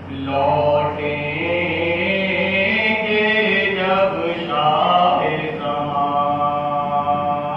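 A man singing a noha, an Urdu lament, solo and unaccompanied into a microphone, in long held notes that move to a new pitch about halfway through.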